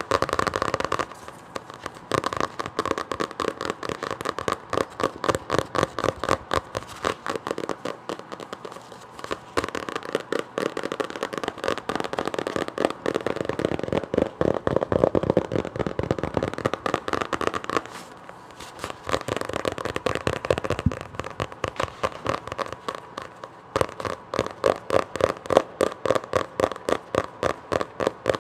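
Fingernails tapping rapidly on a book, several taps a second in quick runs with a few short breaks.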